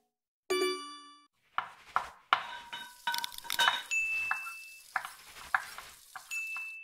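A short bell-like ding, then a quick sound-effect montage of kitchen noises for a logo sting: clinks and clatters of dishes and utensils, with scraping and a short sizzle. A thin high tone sounds for about a second midway and again briefly near the end.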